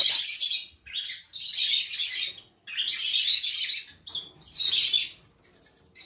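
Parrot nestlings begging with raspy, hissing chirrs while a parent feeds them food brought up from her crop. The calls come in about four bursts of up to a second each, with short pauses between.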